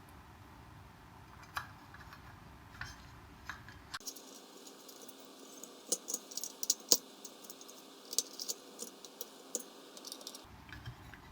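Light metallic clicks, taps and rattles of a small hex key and screws being worked into the legs of a metal RC repair stand. The clicks are sparse at first and come thick and fast from about four seconds in.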